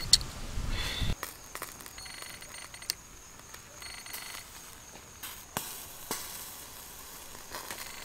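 Charcoal embers crackling faintly under grilling fish, with scattered sharp ticks and pops over a quiet background. A low rumble in the first second cuts off abruptly.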